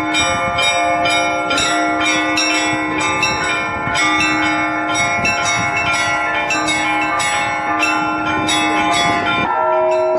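Orthodox church bell ringing (zvon): quick, repeated strikes on several higher bells over a lower bell that sounds again and again, all ringing together. Near the end a deeper bell is struck and hums on under the others.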